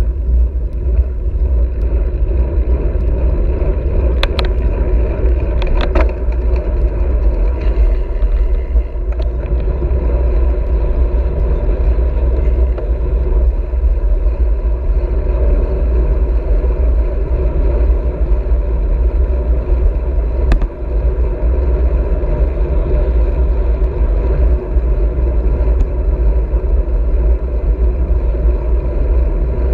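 Loud, steady wind rumble on the microphone of a handlebar-mounted camera on a moving road bike, mixed with tyre noise from the road surface. A few short clicks come about four, six and twenty seconds in.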